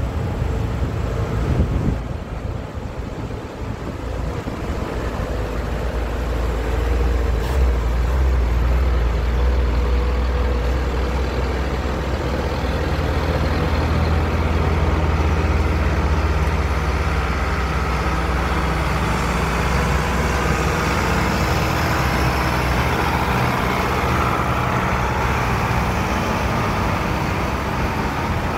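Tractors and Land Rovers driving past one after another, their engines running with a low rumble that grows louder a few seconds in and then holds steady.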